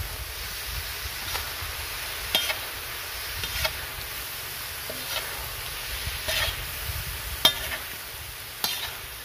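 A flat metal spatula scrapes and turns chicken pieces with tomatoes and green chillies on a large flat tawa griddle, a stroke about every second, over a steady sizzle of frying once the meat's liquid has cooked off.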